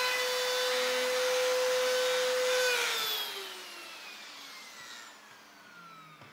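Plunge router motor running free at full speed with a steady high whine, switched off about two and a half seconds in and spinning down, its pitch falling steadily. A faint knock near the end.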